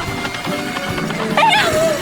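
Upbeat background music with a steady beat. About a second and a half in, a short wavering, falling voiced sound effect.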